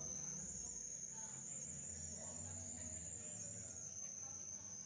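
A steady high-pitched whine, one thin tone that steps slightly higher about half a second in and drops back near the end, over a faint background of low hum.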